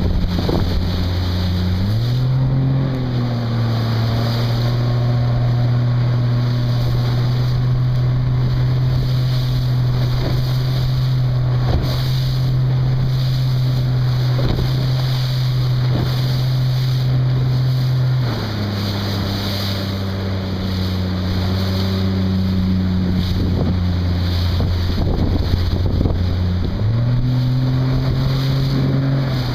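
A boat engine running steadily, its pitch stepping up about two seconds in, dropping back about eighteen seconds in and rising again near the end as the throttle changes. Wind buffets the microphone throughout.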